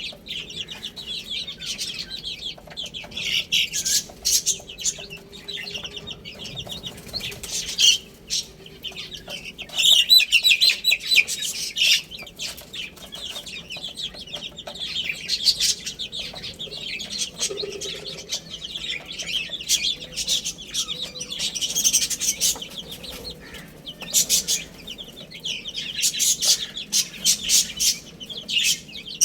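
Baby chicks peeping: many shrill, high-pitched cheeps overlapping in quick runs, with no let-up.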